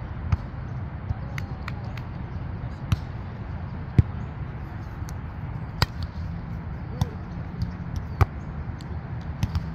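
Volleyballs being struck by hands and arms: about a dozen sharp, irregular slaps, the loudest about four, six and eight seconds in, over a steady low outdoor rumble.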